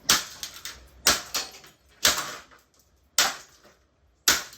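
A vintage Mistral Gyro-Aire fan being smashed: five sharp blows about a second apart, each followed by a few smaller clatters.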